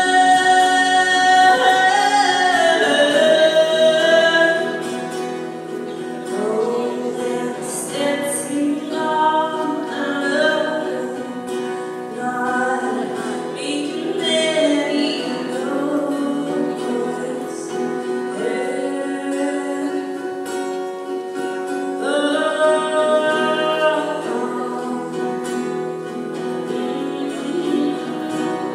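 A woman singing live, accompanying herself on acoustic guitar, heard from among the audience in a hall. She holds long notes, loudest in the first few seconds, then sings more softly.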